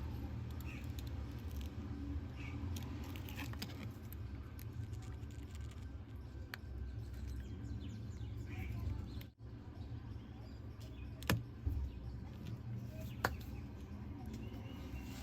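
Small scattered clicks and taps from handling a phone and small repair tools, over a steady low hum. Sharper clicks come about eleven seconds in and again about thirteen seconds in.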